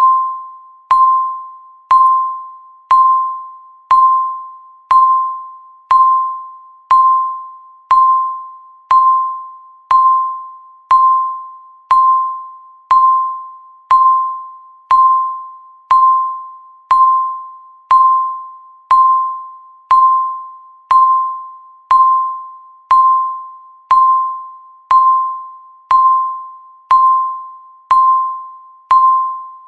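Countdown timer beep: a single bell-like tone struck once every second, each dying away before the next.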